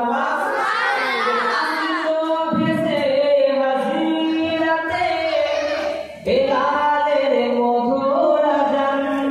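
A man singing a Bengali Islamic devotional song (gazal) into a microphone, holding long notes. There is a short break about six seconds in.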